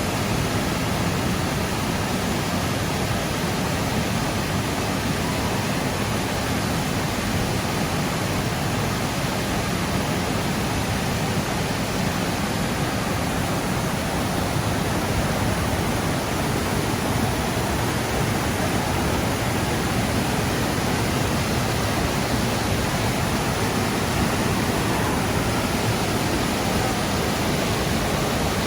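Creek water rushing steadily, an even hiss that does not change.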